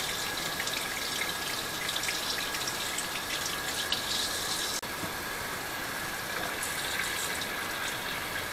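Kitchen sink faucet running steadily, water splashing over hands and mushrooms being rinsed under the stream. About five seconds in the sound briefly drops, then goes on smoother with fewer small splashes.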